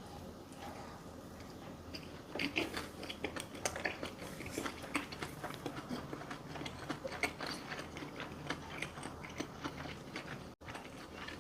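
Close-miked chewing and biting of food, with many small crisp clicks and wet smacks that grow busy about two seconds in. The sound cuts out for an instant near the end.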